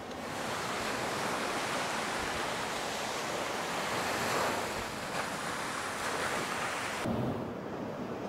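North Sea surf washing onto the shore, a steady rushing that swells around the middle, with wind buffeting the microphone. About seven seconds in it drops to a quieter, duller wash.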